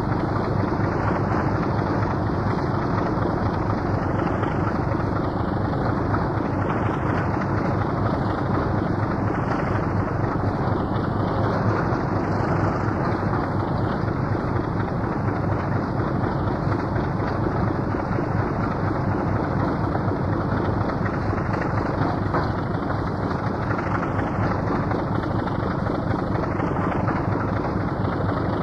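British Rail Class 24 diesel locomotive's Sulzer six-cylinder engine running steadily.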